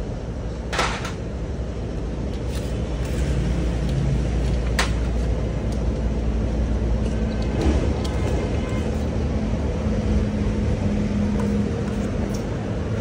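A steady low mechanical rumble, like a vehicle engine running, with a few sharp clicks or knocks about 1, 2.5 and 5 seconds in.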